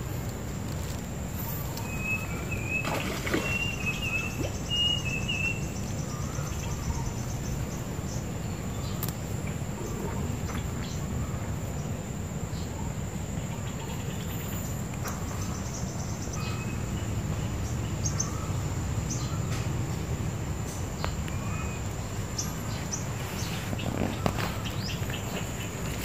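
Outdoor ambience in weedy undergrowth: a steady low rumble under a continuous high insect whine, with a short run of bird chirps a couple of seconds in and a few faint rustles and clicks.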